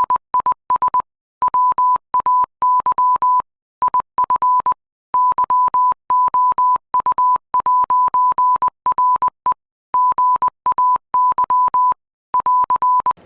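Morse code: a single steady high beep keyed on and off in short dots and longer dashes, with pauses between letters and words. This is the 'Singing Sailor' sign's message, 'this way if you are gay'.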